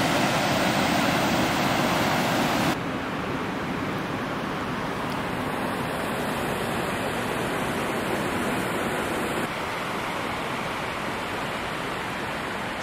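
Steady rushing of river water pouring over a weir and through rapids, with no distinct events; it drops a little in level about three seconds in and again about nine and a half seconds in.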